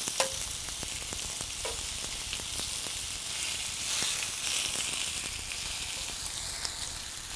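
Slices of fatty pork cheek and jowl sizzling on a hot grill pan, a steady hiss, with light clicks of metal tongs against the pan as the pieces are laid down and moved.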